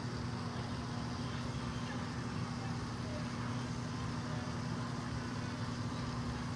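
Hair blow dryer running steadily, a constant low hum over a rush of air.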